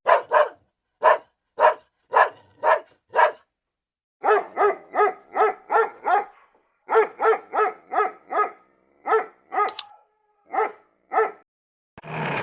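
A dog barking repeatedly: short, sharp barks in runs of about two to three a second, with brief pauses between the runs.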